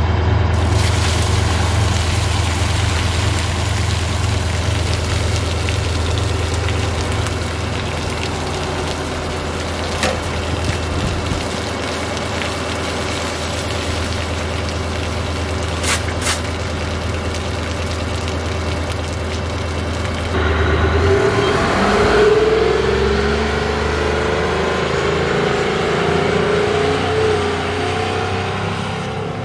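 Marlin airport fire tender's 18-litre Detroit Diesel V12 running steadily while water hisses out of its roof-mounted monitor. About twenty seconds in the hiss stops and the engine revs up as the tender drives off.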